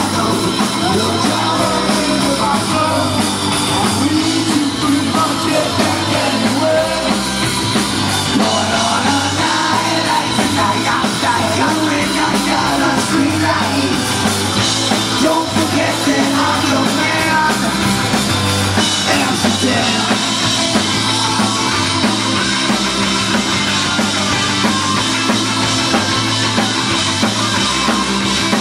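Live punk rock band playing loud: electric guitars, bass and drums with a singer's voice over them, heard from within the crowd.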